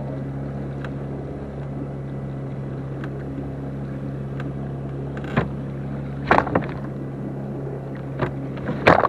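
Boat outboard motor running steadily at trolling speed, a constant low hum. In the second half come several short sharp knocks, the loudest near the end.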